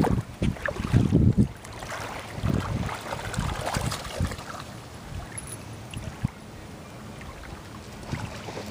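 Wind buffeting the microphone in loud low gusts for the first second and a half, then lighter splashing and lapping of shallow lake water as a Great Dane steps and dips his muzzle into it.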